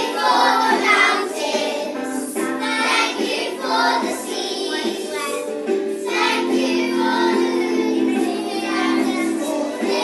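A class of primary-school children singing a song together over a musical accompaniment.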